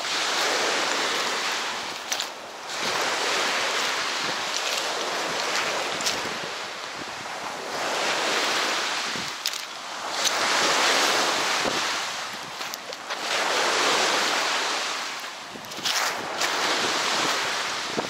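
Small waves washing onto a pebbly shore: a steady hiss of surf that swells and fades every few seconds.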